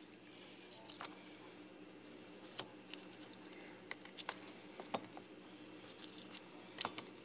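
Faint, scattered soft taps and clicks as wet squash slices are laid into an enamelware pan, over a low steady hum.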